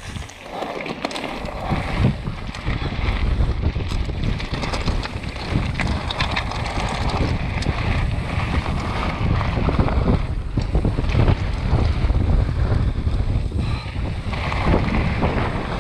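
Wind buffeting a bike-mounted action camera's microphone, with the tyres of a downhill mountain bike crunching over loose slate gravel and short clicks and rattles from the bike. It builds over the first couple of seconds as the bike picks up speed.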